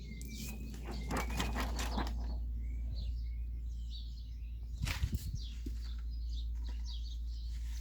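Scattered clicks and rustles of plastic keyboard parts being handled, with a cluster near the start and another about five seconds in. Birds chirp briefly in the background over a steady low hum.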